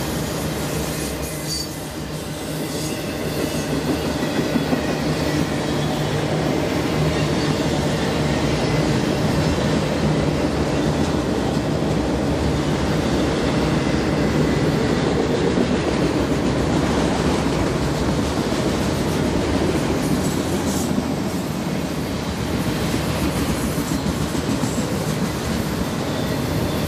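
Freight train cars rolling past, a steady rumble of steel wheels on the rails that builds a little over the first few seconds and then holds.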